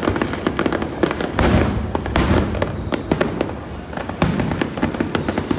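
Fireworks going off: a dense crackle of small pops throughout, with three louder bursts about one and a half, two and four seconds in.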